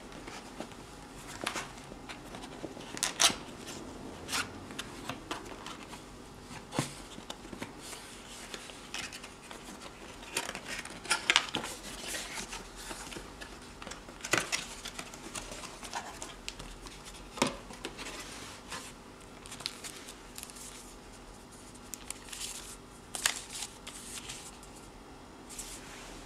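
Cardboard packaging handled by hand: a box's inner tray sliding out and its flaps being folded open, with irregular clicks, scrapes and rustles of card and paper.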